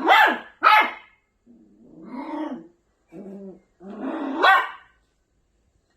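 Maltipoo puppy barking and growling: two sharp barks at the start, then lower growly grumbles, and a longer growl that rises into a bark near the end.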